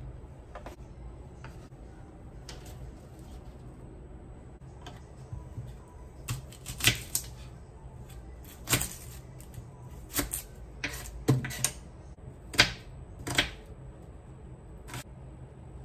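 Kitchen knife cutting an onion on a bamboo cutting board: about a dozen sharp, irregular knocks of the blade striking the board, starting about six seconds in.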